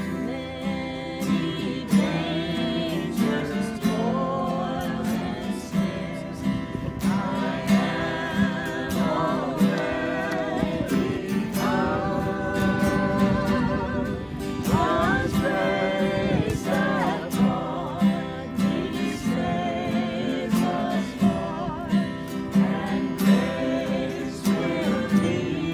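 Worship song: acoustic guitar strumming with a voice singing over it.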